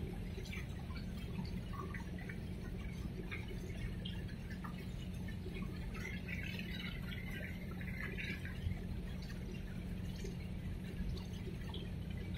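Harbour water lapping and splashing, with small splashes that thicken about halfway through, over a steady low hum from the passing container ship.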